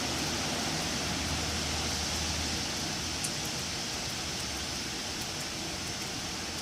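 Wind blowing through trees: a steady rush of noise, with a low rumble in the first half and a faint tick about three seconds in.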